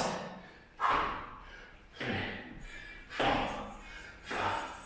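Feet landing during skater hops on a rubber-matted floor: a thud about every second, four in all, each fading away before the next.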